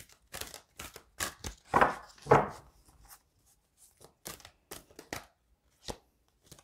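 A deck of tarot cards being shuffled by hand: a run of short, irregular card slaps and riffles, the loudest two about two seconds in.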